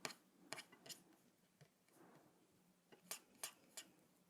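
A few soft computer mouse clicks in near silence, a cluster in the first second and another about three seconds in.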